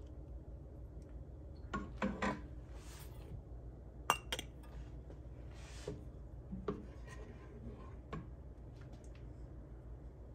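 Stainless steel canning funnel clinking and scraping against glass canning jars as it is lifted and set onto the jars, a few separate knocks spread through, the loudest about four seconds in.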